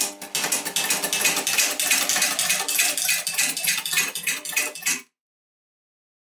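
Mini lathe motor spinning a wire-winding arm at speed to rewind an electric motor armature: a steady hum under a fast metallic clatter. It stops abruptly about five seconds in.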